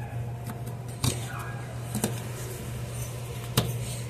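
A screwdriver used as a tire lever working the last stretch of a bicycle tire's bead onto the rim, with three sharp clicks: about a second in, at two seconds, and the loudest near the end. A steady low hum lies underneath.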